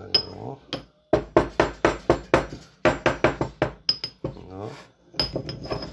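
Stone pestle striking and grinding in a stone mortar as dry spices are crushed and mixed: a quick run of knocks about five a second, then a shorter run.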